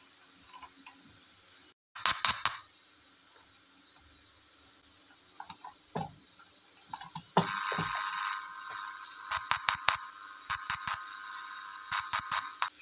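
A high-pitched whine from the homemade amplifier's loudspeaker starts suddenly about two seconds in and wavers a little in pitch. It grows much louder about seven seconds in, with crackling clicks and pops as the speaker wires and volume knob are handled, and cuts off just before the end.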